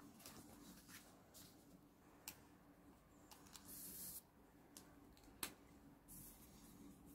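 Faint handling of paper and stationery: a scatter of light taps and clicks, with two short papery rustles or slides, the first about 4 s in and another about 6 s in.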